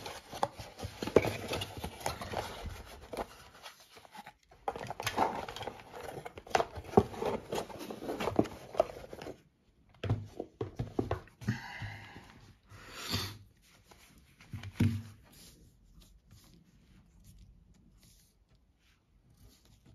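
Cardboard box and its cardboard insert being handled: crackly rustling and scraping with many sharp clicks and knocks for about the first half. Then come a few louder scuffs and thumps, and only faint small clicks near the end.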